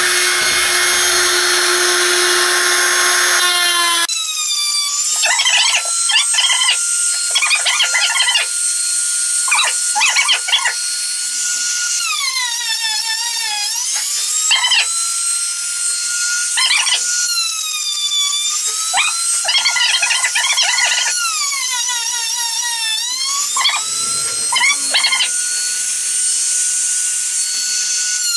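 Laminate trimmer router cutting a groove in an MDF panel for the first few seconds, then running on unloaded with a steady high whine. Twice the whine sags in pitch and recovers, and clusters of clicks and knocks sound as loose MDF strips and the workpiece are handled.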